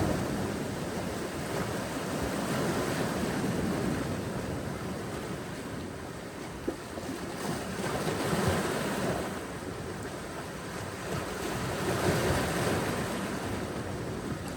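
Ocean surf washing onto a beach: a continuous rush of waves that swells and eases several times. A brief click about seven seconds in.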